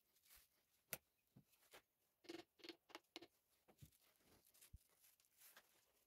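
Faint clicks and light metallic taps from a piston ring compressor being handled on the cylinder block deck while a piston is fitted into its bore. There is one sharp click about a second in and a quick run of four or five taps around the middle.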